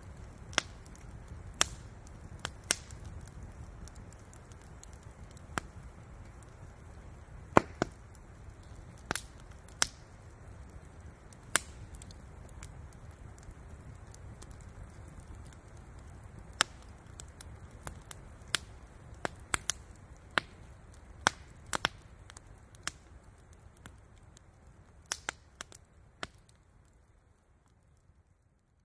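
Wood campfire crackling, with irregular sharp pops a second or two apart over a low steady rumble, fading out near the end.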